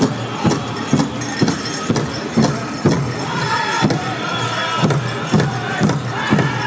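Powwow drum group singing a grass dance song over a big drum beaten in a steady beat of about two strokes a second.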